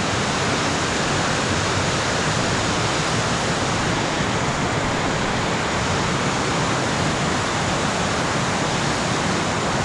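Floodwater rushing steadily through white water, an even, unbroken noise.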